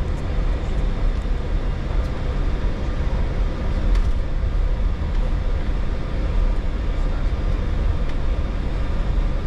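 Steady cabin noise in an Airbus A310 cockpit during taxi: a continuous low rumble with a steady hum over it from the engines and aircraft systems.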